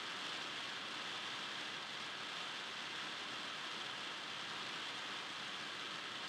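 A steady, even hiss with no distinct events: no ball bounces, shoe squeaks, whistles or voices stand out.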